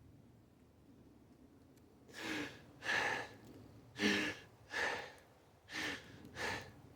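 A person breathing deeply: three pairs of breaths, each a sharp inhale with a slight catch of voice followed by an exhale.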